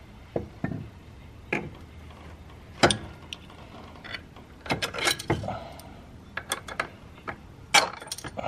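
Hand ratchet clicking in short runs as bolts are turned, among sharp metal clinks and knocks of tool and hardware. The loudest single knock comes about three seconds in, with quick runs of clicks about five seconds in and near the end.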